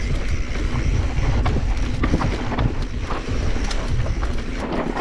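Mountain bike rolling down a rocky dirt singletrack, with wind rumbling on the microphone and frequent sharp clicks and rattles from the bike over rocks and ruts.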